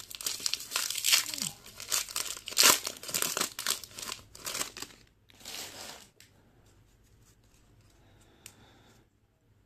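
A foil trading card pack being torn open and crinkled as the cards are pulled out, dense crackling for about five seconds and a last short crinkle, then it goes faint with one small click near the end.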